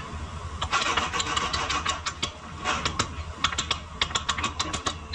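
Hand tools clicking and clinking in quick, irregular runs over a steady low hum, as in car suspension repair work.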